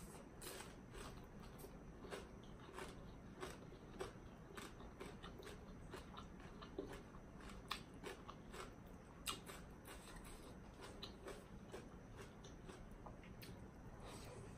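A person chewing and crunching a mouthful of papaya salad with raw vegetables, as irregular faint wet clicks and crunches.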